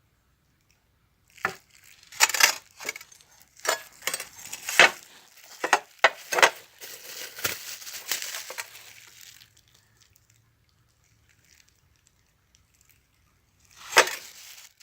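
Hard metal engine parts, a bored motorcycle cylinder and its piston, knocking and clinking as they are handled: about a dozen sharp knocks in the first part, then a pause and one more knock near the end.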